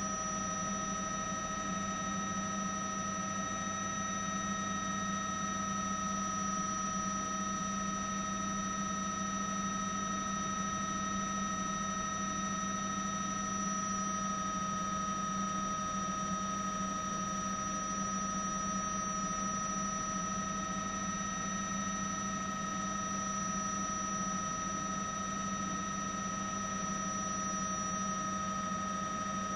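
A steady mechanical drone: an even hiss with several constant whining tones, low and high, that never change.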